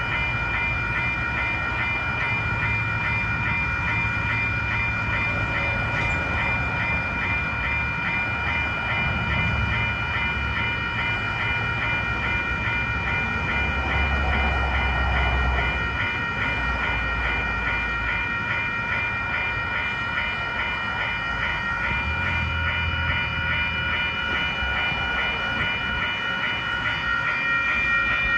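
Western-Cullen-Hayes Type 1 electronic railroad crossing bells ringing, a fast, even, high-pitched dinging that keeps up steadily. A low rumble runs underneath, swelling about halfway through and again later.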